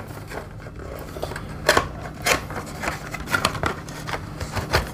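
A small cardboard blind box for a Space Marine Heroes miniature being opened and handled by hand: a run of scrapes and rustles of card with a few sharper clicks.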